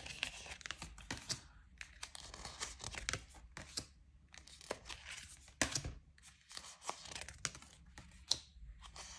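Oracle cards being handled and slid one off another in the hands: faint, irregular swishes of card on card with small clicks, the sharpest snap about halfway through.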